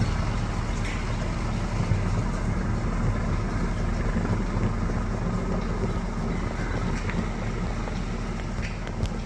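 Steady low rumble of a vehicle running, heard from inside it, with a few faint knocks.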